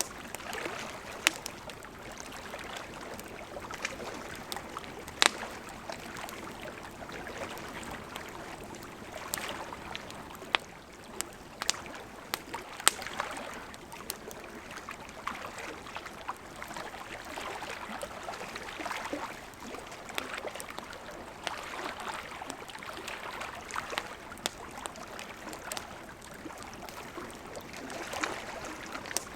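Campfire crackling with scattered sharp pops over gently lapping lake water that swells and ebbs every few seconds.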